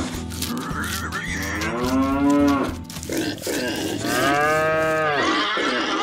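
Cattle mooing: several long moos one after another, each rising and falling in pitch.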